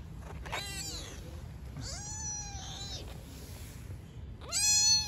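Young kitten meowing: three high-pitched meows, a short one, a longer drawn-out one, and the loudest near the end.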